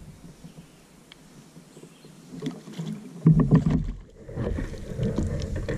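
Splashing and knocking at the side of a kayak as a hooked smallmouth bass is fought and brought in, in a loud, choppy burst about two and a half to four seconds in.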